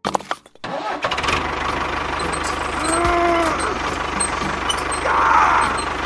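Tractor engine starting about half a second in, then running steadily with a fast, even low chug. A short tone rises and falls about three seconds in.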